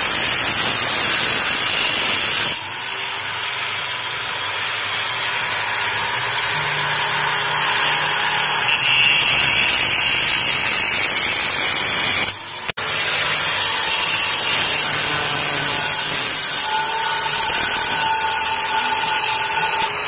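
Electric angle grinder running with a steady high whine, its disc cutting the steerer tube of a mountain-bike suspension fork. The sound drops out briefly about twelve seconds in.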